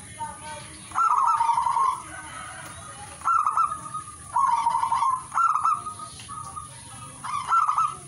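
Zebra dove (perkutut) singing: five phrases of rapid, rolling coos, each half a second to a second long, with short pauses between them.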